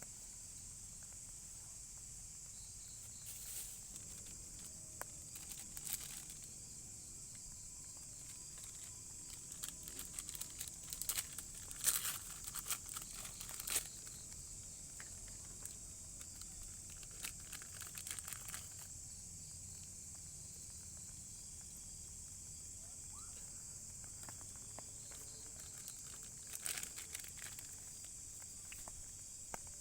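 Steady high-pitched buzz of forest insects, with bursts of crinkling and rustling several times, the loudest a few seconds before the middle.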